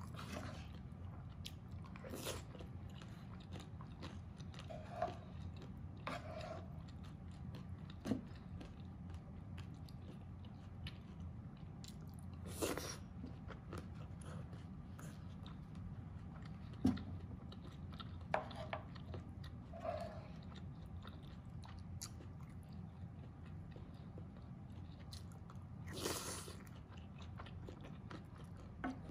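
Close-up eating sounds: a person chewing mouthfuls of mapo tofu and rice, with wet mouth clicks. Now and then a wooden spoon scrapes and scoops in the pan. A steady low hum runs underneath.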